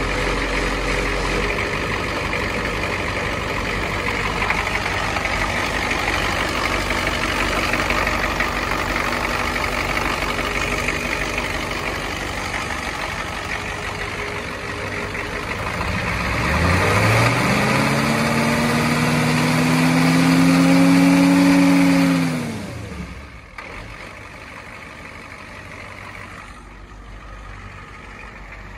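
1986 International T444 7.3-litre diesel V8 running steadily, then revved up a little past halfway, held at higher speed for about five seconds and let fall back, after which it idles more quietly.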